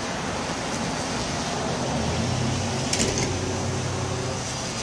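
Yuneec Typhoon H hexacopter's six rotors whirring steadily in flight overhead. A low hum joins in about two seconds in, and there is a sharp click about three seconds in.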